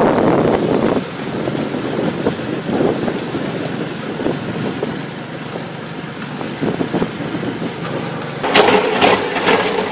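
Rolling vehicle ride: a steady rumble with light rattles as it moves along a paved street. Heavier clattering and rattling set in near the end.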